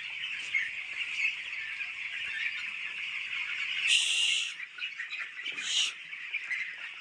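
A flock of young chicks peeping continuously, a dense steady high-pitched chorus. Two brief louder rustling noises come about four and six seconds in.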